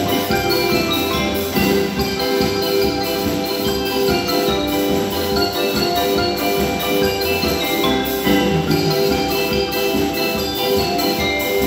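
A student percussion ensemble of marimbas and vibraphones playing a Hanukkah tune, many mallet-struck notes ringing together.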